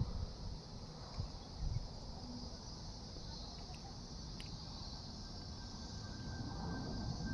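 Steady high-pitched chorus of crickets or similar insects over low wind rumble, with a few soft thumps at the start. Near the end a thin whine comes in and the level starts to rise as an approaching airliner's engines become audible.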